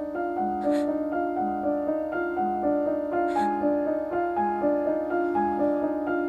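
Background piano music: a slow, repeating pattern of notes, with each note held and overlapping the next.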